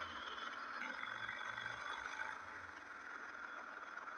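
Motorcycle riding along a road: steady engine, road and wind noise.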